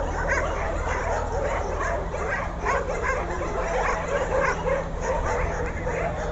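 Many dogs barking and yipping at once, overlapping calls with no break.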